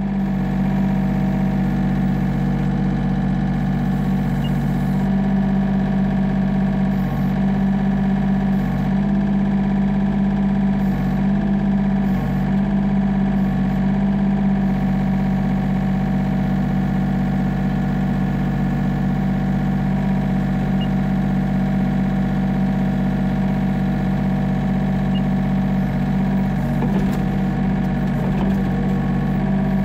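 Yanmar B37 mini excavator's diesel engine running steadily, its note wavering a little as the hydraulics move the boom and bucket.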